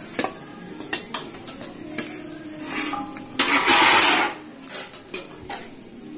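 Metal spoon clinking and scraping against a metal pressure cooker and plate as cooked rice is scooped out, with a series of short taps. A longer scrape about three and a half seconds in is the loudest.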